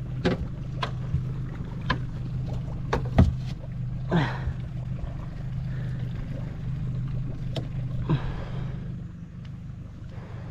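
A boat motor running steadily at low speed, with scattered sharp knocks and clatters as a collapsible crab pot is handled against the boat, and two short sounds falling in pitch about four and eight seconds in.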